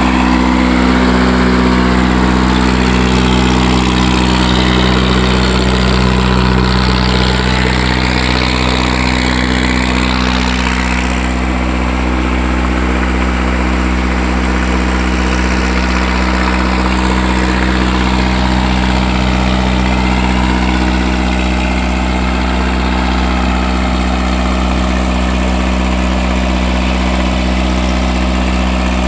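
A vegetable seller's vehicle engine running steadily at idle, its note even and unchanging.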